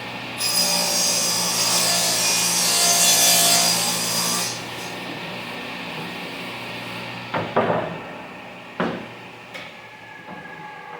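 Table saw running, its blade cutting through a 1/2 inch plywood panel for about four seconds with a loud, hissing cut, then spinning on free after the cut. A few sharp wooden knocks follow as the cut pieces are handled.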